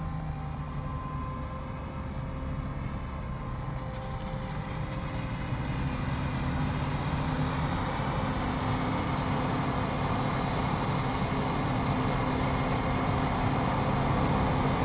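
Krone self-propelled forage harvester chopping maize and blowing it into a tractor-drawn silage trailer: a steady drone of the engines and chopping gear, growing louder from about five seconds in as the machines come closer.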